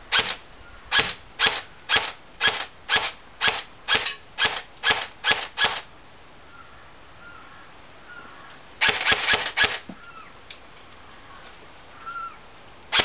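G&G TR16 A3 electric airsoft rifle firing single shots on semi-auto, about a dozen at roughly two a second, followed a few seconds later by a quick run of about five shots and another quick run at the very end.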